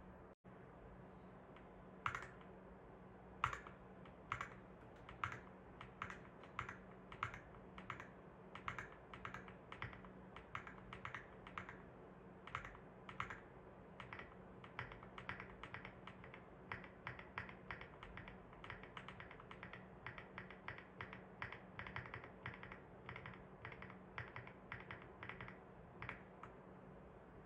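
Keys being typed on a Womier RD75 Pro mechanical keyboard, which the uploader calls creamy-sounding: a few single keystrokes at first, then steady typing that quickens and grows denser, stopping shortly before the end.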